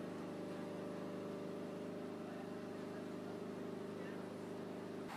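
Uerdinger railbus's underfloor diesel engine idling with a steady, even hum.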